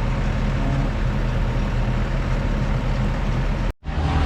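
Tracked excavator's diesel engine running steadily under load, with a wide mechanical noise over it; it cuts off abruptly for a moment near the end.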